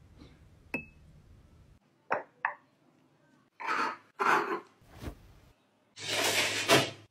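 A quick series of close kitchen handling sounds: a few light clicks and clinks from a spoon and glass jar, then two short rasping strokes of a knife cutting through jackfruit rind, a low thump, and near the end a longer scraping rasp as a metal baking tray slides into an oven.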